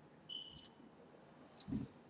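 Faint mouth clicks from a man eating fries, with a brief high tone about a third of a second in and a soft low thump near the end.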